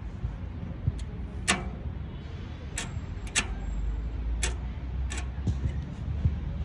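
Wood fire crackling in a small camping wood stove: six sharp pops at irregular intervals over a low steady rumble.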